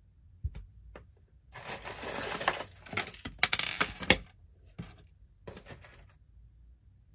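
A heap of loose costume jewelry clinking and jangling as a hand rummages through it, a few single clicks at first, then a dense run of clinks for about two and a half seconds in the middle, then a few more scattered clicks.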